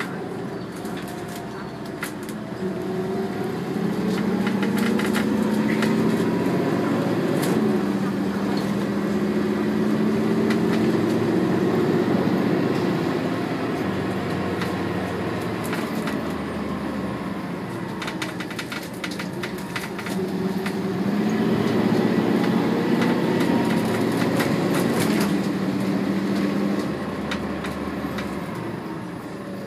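Mercedes O405 bus's M447hG compressed-natural-gas engine heard from inside the cabin, pulling the bus up to speed twice: the engine note climbs and drops back as the Allison automatic gearbox changes up, then eases off. Body rattles and clicks run through it.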